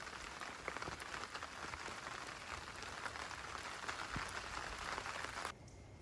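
Steady dense patter of many small drops, rain on the roof heard from inside. It cuts off suddenly about five and a half seconds in.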